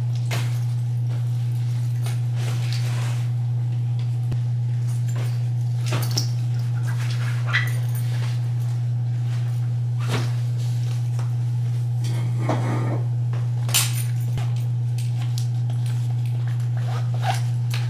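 A steady low hum throughout, with scattered rustles and clicks as travel bags are handled and set onto a rolling suitcase.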